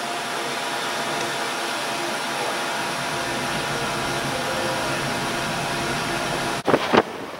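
Steady rushing whir of an air blower in a small tiled restroom, with a faint steady hum under it. It cuts off suddenly near the end and gives way to gusts of wind buffeting the microphone.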